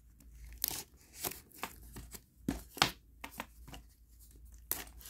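Packing tape being slit and pulled off a small cardboard shipping box with a knife: a series of short, irregular scrapes and rips, the sharpest about three seconds in.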